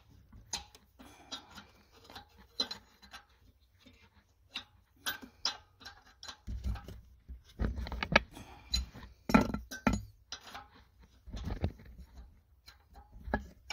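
Metal wrench clinking and scraping against engine parts as it works on the PCV valve: scattered light clinks, with heavier knocks and bumps in the second half.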